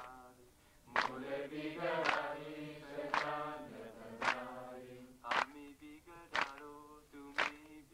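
Group of voices singing a devotional chant, with a sharp percussive beat about once a second keeping time.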